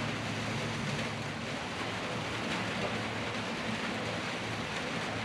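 Steady hiss of light rain falling, with a faint low hum that fades out about a second in.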